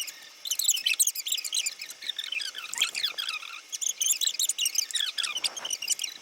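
Many short, high chirps and squeaks overlapping, like small birds chirping, with a brief rustle near the end.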